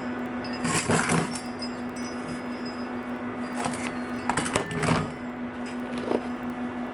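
Metal parts clinking and scraping a few times, in short sharp bursts, over a steady electrical hum.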